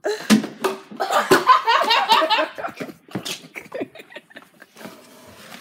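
Boys laughing and shrieking with excitement, in wavering bursts, with a few sharp knocks.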